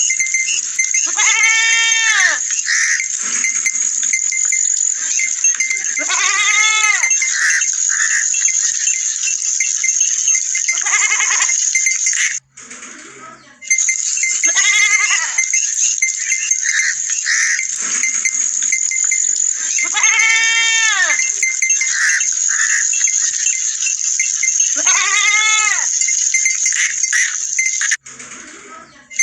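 Small livestock bleating: about six drawn-out bleats, each about a second long with a rise and fall in pitch, coming every four to five seconds over a steady high hiss. The sound cuts out briefly twice, near the middle and near the end.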